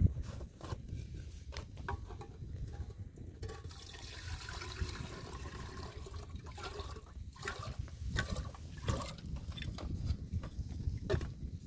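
Water running or being poured, with scattered knocks and clicks.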